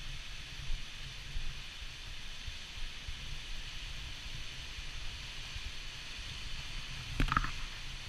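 Steady rushing of a waterfall and its rocky stream, with wind buffeting the microphone in a fluttering low rumble. A short, sharp sound stands out about seven seconds in.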